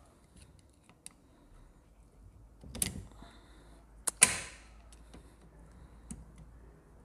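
Small metal clicks of a hand tool working a kick-start spring onto the kick shaft of a motorcycle crankcase, with a louder clank near three seconds and a sharp metallic clack just past four seconds as the spring end is levered into its lock.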